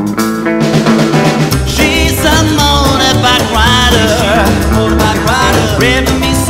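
Band music from a rock and roll song: drums and bass come in about a second and a half in, under a bending, wavering lead melody.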